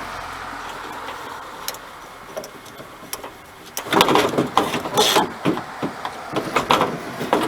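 Irregular clicking and clattering of an 8mm socket wrench and metal parts as the old rear wiper motor is unbolted and worked free of the van's liftgate. The clatter starts about four seconds in, after a steady hum that fades during the first two seconds.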